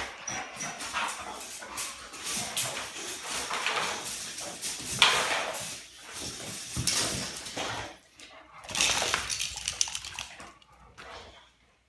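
Wire dog crate rattling and clanking as a dog wriggles out under its edge, with scraping and bumps against the floor. The loudest clank comes about five seconds in, and the clatter dies away near the end.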